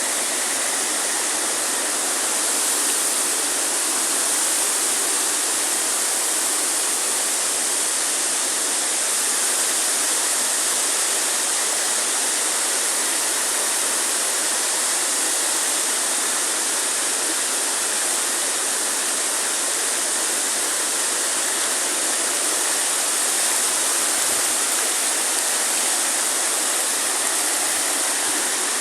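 Waterfall: a steady, unbroken rush of falling water, bright and hissy with almost no deep rumble.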